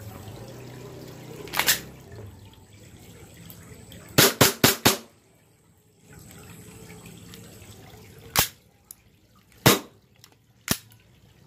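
WE Glock 17 Force Edition gas-blowback airsoft pistol being test-fired after a repair to its cracked slide. About eight sharp shots: one, then a quick string of four about four seconds in, then three single shots a second or so apart near the end.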